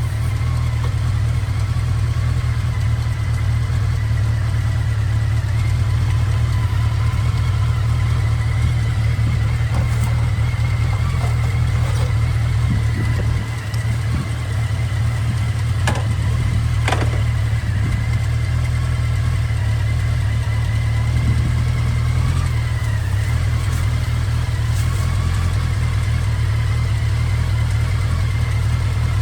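Motorcycle engine running steadily, with a brief dip in level about thirteen seconds in and a few scattered clicks.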